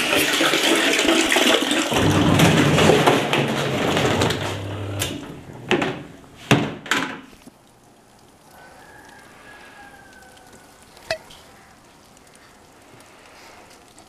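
Water running steadily, as from a tap filling a tub. About five to seven seconds in come several sharp knocks, and then the running stops and it goes quiet, with one more click later.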